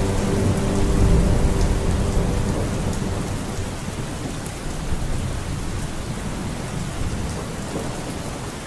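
Steady heavy rain with a long, low roll of thunder that swells about a second in and slowly dies away.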